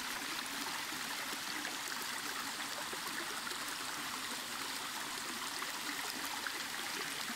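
Shallow creek water running over rocks and stones, a steady, even sound.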